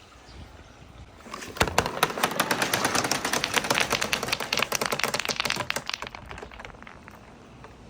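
Marbles clattering down a wooden marble run: a dense stream of rapid clicks and clacks that starts about a second and a half in and dies away about six seconds in.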